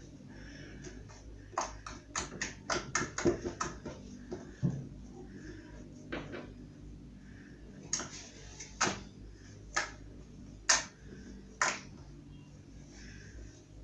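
Homemade slime being squeezed and worked by hand, giving sharp popping clicks: a quick run of them in the first few seconds, then single pops about a second apart.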